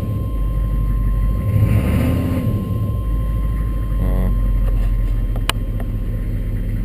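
Chevy 6.5-litre turbo diesel V8 idling with a steady low rumble. A single sharp click sounds about five and a half seconds in.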